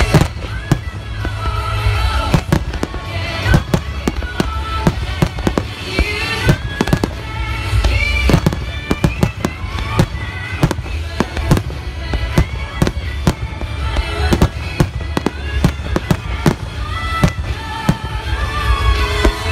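A rapid, continuous barrage of aerial fireworks: many sharp bangs following each other throughout, from shells bursting overhead. Music plays underneath.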